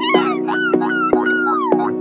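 Background music: an upbeat song with a steady beat, with short, high, squeaky falling glides over it.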